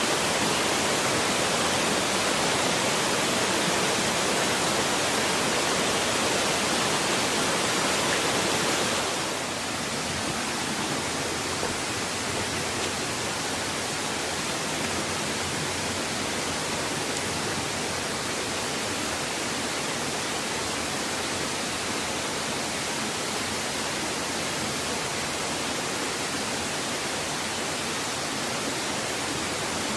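Steady rushing water of a mountain stream, an even hiss that drops a step in level about nine seconds in.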